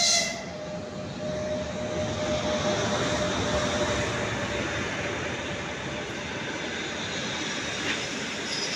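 Passenger train hauled by an EP1 electric locomotive running past, the coaches giving a steady noise of wheels on rails that swells about a second in and holds. It opens with a brief, loud, high toot as the locomotive goes by.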